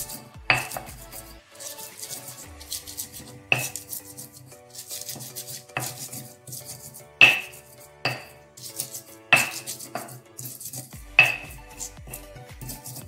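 Stone pestle crushing and grinding red chillies with salt in a stone mortar (Indonesian cobek and ulekan). There are six sharp, ringing stone-on-stone knocks at irregular intervals, with rough grinding scrapes between them.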